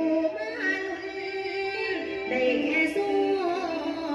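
A young woman singing into a handheld microphone over backing music, holding notes and ornamenting them with pitch bends and turns.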